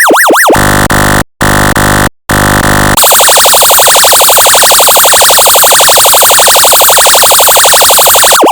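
Synthetic electronic siren and alarm tones from a function generator. A fast up-and-down yelp sweep switches about half a second in to a harsh buzzing horn tone, cut by two brief silences. From about three seconds in, a rapid pulsing electronic alarm tone takes over.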